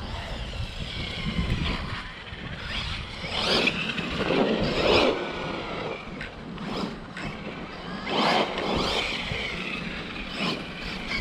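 Losi RZR Pro R RC side-by-side driving in bursts: its brushless electric motor whines up and down in pitch several times as the throttle is worked, over a noisy bed of tyre and ground noise with a low rumble.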